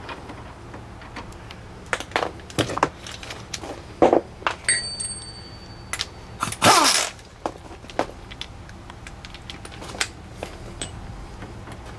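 Scattered metal clinks and knocks of tools and suspension parts, with one short, loud whir partway through from a cordless impact wrench spun on the tie rod end nut.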